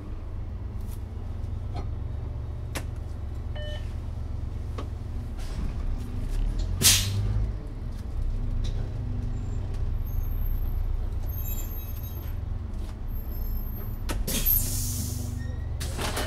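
Iveco Urbanway 12 natural-gas city bus heard from on board: a steady low engine and road rumble, with a loud short hiss of compressed air about seven seconds in and a longer one near the end.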